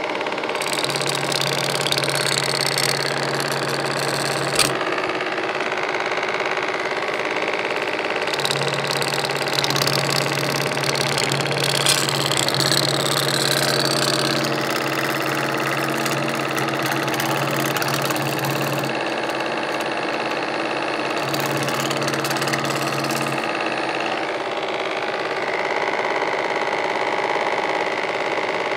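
Pullmax reciprocating sheet-metal machine running steadily while a strip of sheet steel is worked through its forming tools to shape a gutter profile. A harder, brighter clatter comes and goes several times over the machine's steady hum.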